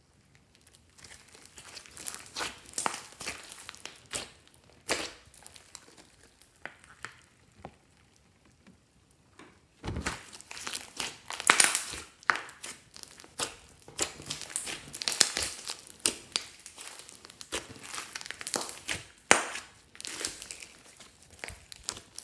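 Hands pressing, stretching and folding slime: a string of short sharp clicks and pops. It is sparse for the first several seconds, nearly stops for a few seconds in the middle, then comes thicker and louder from about ten seconds in.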